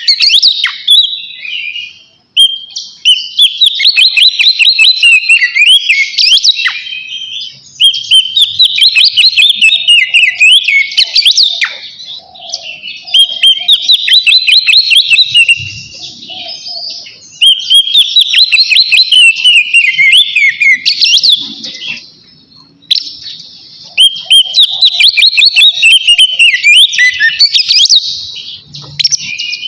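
Oriental magpie-robin (kacer) singing loudly in its full 'ngeplong' song: fast runs of whistles and trills, in phrases of about five seconds broken by short pauses.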